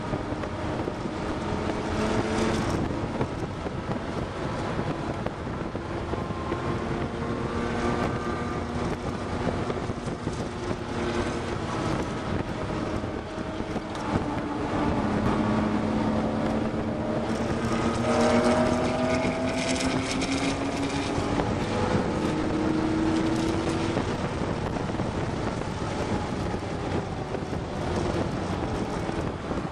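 Car engine heard from inside the cabin during hard track driving, its pitch rising again and again as it accelerates and falling back between pulls, over steady road and wind noise.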